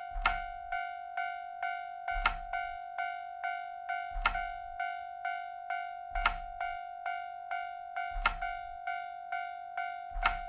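Japanese railroad crossing warning bell ringing its steady 'kan-kan' alarm, about two dings a second. A louder sharp knock with a low thud comes about every two seconds.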